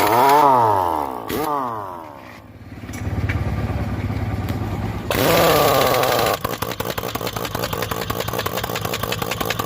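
Impact wrench taking the nuts off a punctured trolley wheel: its whine rises and falls in pitch three times, then it hammers rapidly and evenly for the last few seconds, over a steady low hum.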